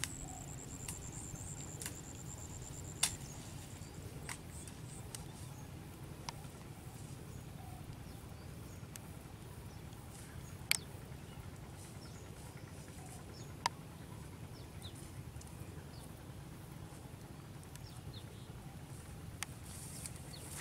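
Quiet rural outdoor ambience with a steady low background noise. A thin, high trill runs through the first four seconds or so, and a few sharp clicks or snaps break in, the loudest about three, ten and thirteen seconds in.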